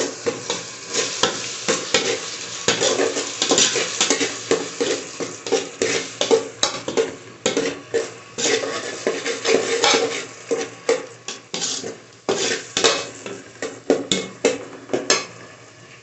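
Steel ladle stirring and scraping softened tomatoes and onions in an aluminium pot, with repeated scraping and clinking strokes against the pot that stop shortly before the end.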